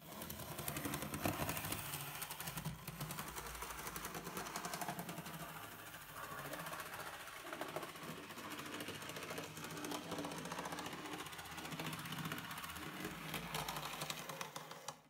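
N-scale model trains running, a steady fast clicking rattle of small electric locomotive motors and wheels on the track with a low hum beneath. The running is not quiet because the locomotives still need new wheels and motor adjustment, as the owner says.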